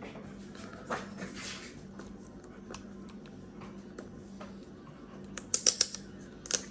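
Small clicks and a soft rustle of hands working on laptop parts and tape, ending in a quick run of sharp plastic clicks, over a steady low hum.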